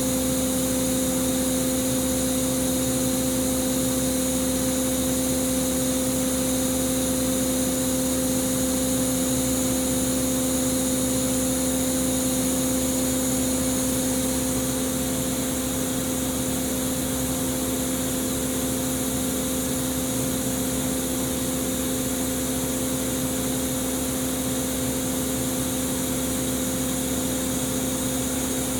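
Kitamura Mycenter 3Xi machining center running steadily, with its spindle turning at a constant speed: an even machine hum with a steady whine. It eases slightly quieter about halfway through.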